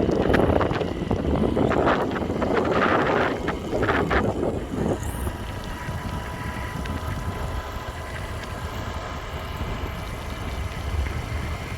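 Wind buffeting the microphone over motorcycle engine and road noise on a moving bike. The gusts are strongest for the first five seconds or so, then settle to a steadier, lower rush.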